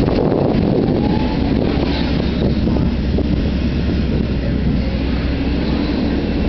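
Hyundai Robex 140-9 tracked excavator's diesel engine running steadily under load while the arm digs and swings the bucket.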